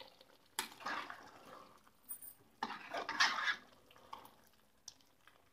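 A spoon stirring chicken curry in a pot, scraping against the pot, in two main stretches of about a second each, the first about half a second in and the second past the middle.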